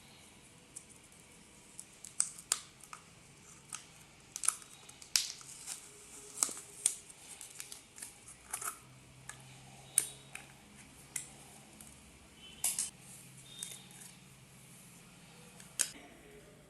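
Irregular sharp clicks and taps of plastic and small hard parts as a Dell Vostro 1550 laptop is handled during disassembly for a RAM upgrade.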